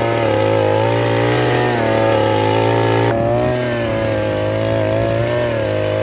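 A 52 cc two-stroke Kisan Power brush cutter engine running steadily while it drives a tiller-blade attachment through soil. Its note wavers slightly up and down.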